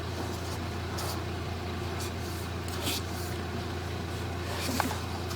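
A steady low mechanical hum, like a running engine, with a few faint short hisses about once a second.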